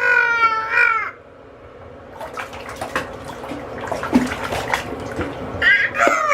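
A baby's high-pitched squeal, then bathwater splashing for a few seconds, then another short rising squeal near the end.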